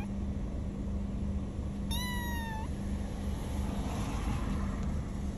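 Kitten giving a single short, high meow about two seconds in, over a steady low hum.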